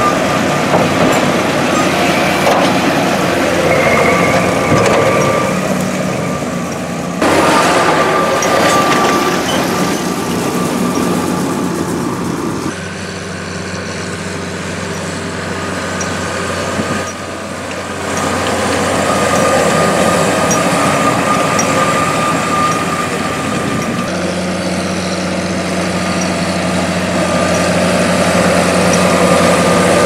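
John Deere tractor engine running under load while pulling a McHale V660 round baler, with the baler's machinery working and a steady high whine over the engine. The sound shifts abruptly a few times.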